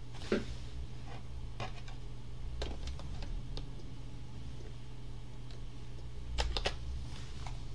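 Scattered light clicks and taps from a computer mouse and keyboard, over a steady low hum. A cluster of three quick clicks comes about six and a half seconds in.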